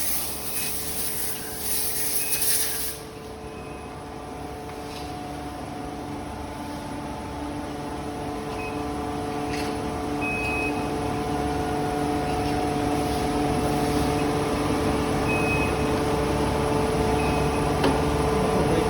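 Steady hum of factory machinery. A hiss of compressed air runs for the first three seconds or so, with short high beeps now and then and a single sharp knock near the end.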